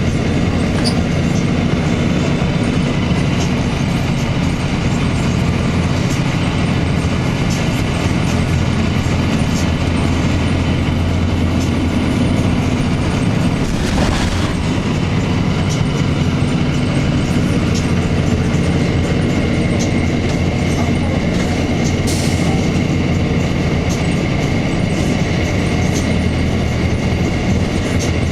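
2002 Blue Bird CS transit bus running, its Cummins ISC diesel giving a steady low drone with rattles and road noise. There is a single knock about halfway through and a brief hiss about three-quarters of the way through.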